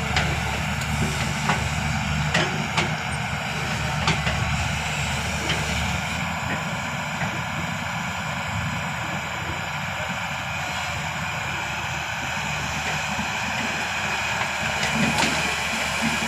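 Diesel engine of a digging machine running steadily under load, with occasional sharp clanks and knocks.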